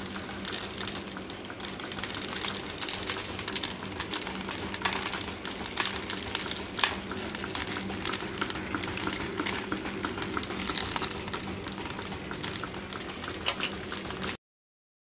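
Mini DC motor running with a steady hum as it shakes a perforated cardboard sieve tray, with the small coloured balls on it rattling and clicking continuously as they are sifted. The sound cuts off suddenly near the end.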